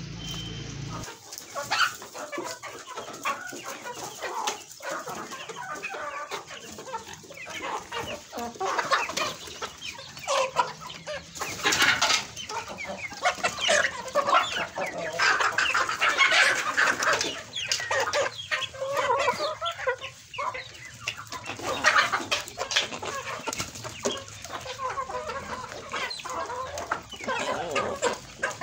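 A flock of chickens, hens and roosters, clucking and calling over one another; the calls start about a second in and keep going busily.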